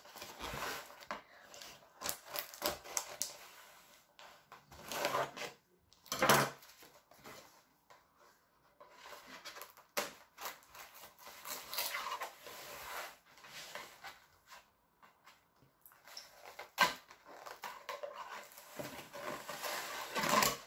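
Cardboard mailer being opened by hand and with a kitchen knife: tape peeled and slit, card flaps scraping and rustling, with a few sharp, louder rips and knocks.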